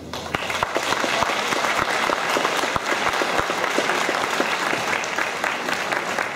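Audience applauding, rising quickly at the start and then steady, dense clapping.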